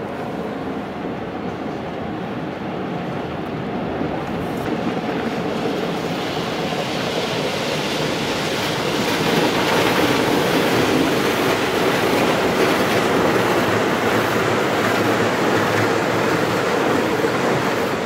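Automatic tunnel car wash heard from inside the car: water spraying and sheeting over the windshield and hanging cloth strips scrubbing across the body, a steady rushing and rumbling noise that grows louder over the first several seconds.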